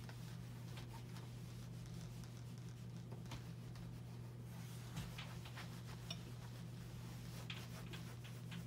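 Faint rustling and scratching of fabric as pants are handled on an ironing board, with a few small clicks, over a steady low hum.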